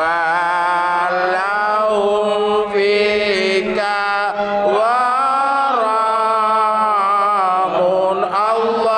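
Arabic devotional chant (shalawat) sung in long, wavering held notes with gliding ornaments between phrases, over a steady low drone that fades out about halfway through.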